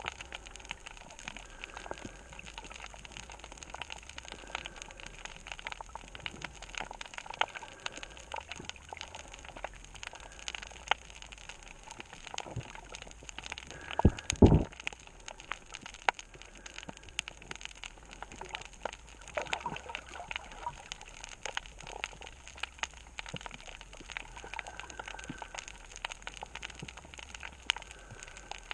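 Underwater reef crackle: a dense, steady patter of tiny clicks, typical of snapping shrimp on a coral reef, heard through an underwater camera. About halfway through there is one low thump.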